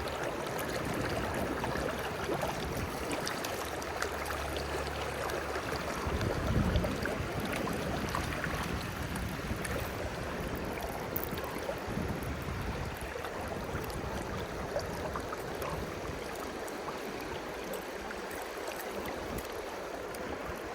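River water flowing past, a steady rushing noise, with a brief low thump about six and a half seconds in.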